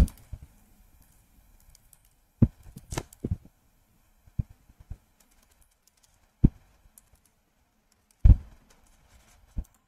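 Computer keyboard being typed on: scattered, irregular keystrokes with quiet gaps between them, and one louder thump about eight seconds in.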